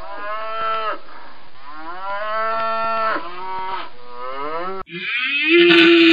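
Deer calling: three drawn-out calls, each rising, holding and falling away at the end. About five seconds in they cut off, and a louder cat's meow begins.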